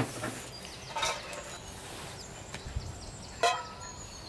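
Short calls from farmyard fowl, one about a second in and a louder one near the end, over faint high chirping from small birds.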